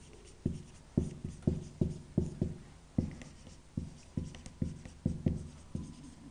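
Marker writing on a whiteboard: a quick string of short taps and strokes as the pen hits and moves across the board, about two to three a second.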